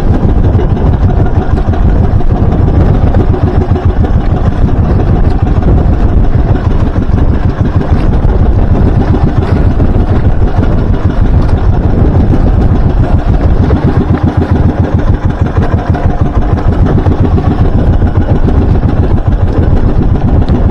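Small outrigger boat's engine running steadily and loudly close by, with water splashing along the hull.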